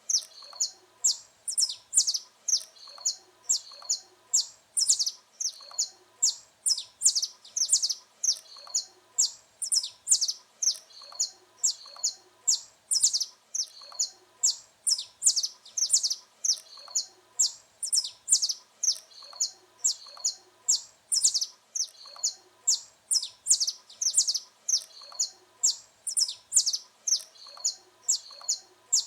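Saffron finch (canário-da-terra) singing: an unbroken run of sharp, high chirps, about two or three a second.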